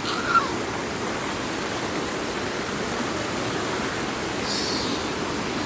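Waterfall pouring steadily: an even rushing hiss of falling water.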